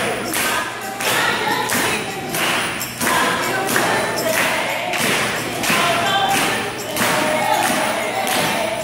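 Recorded Seneca dance song played back: a steady drum beat about twice a second under group singing.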